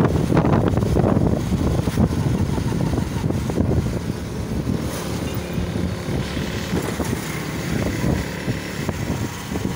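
Wind buffeting the microphone of a phone on a moving motorcycle, over the steady running of the motorcycle's engine. The wind rumble is heaviest in the first second or two, then eases to a steadier hum.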